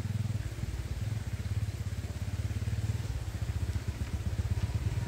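An engine running steadily, a low sound with a fast, even pulse.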